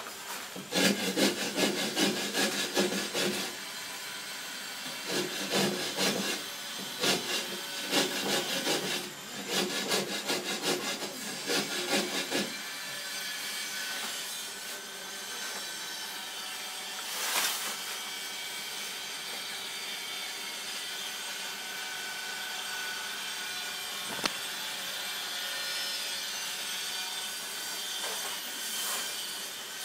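Ceramic wall tile being scraped by hand with rapid back-and-forth rasping strokes in four spells, the work of shaping a tile by hand. After about twelve seconds the strokes stop, leaving a quieter steady noise with one soft swish and a single sharp click.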